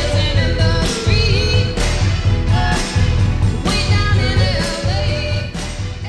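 Song with a singer over a steady bass beat, getting quieter in the last second or so as it fades out.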